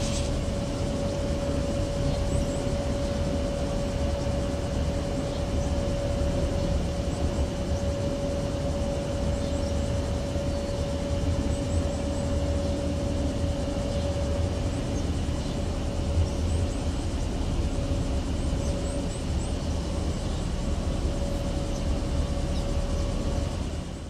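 Low, steady drone of a small general cargo ship's engine as the ship passes, with a constant humming tone over the rumble that fades in the middle and comes back.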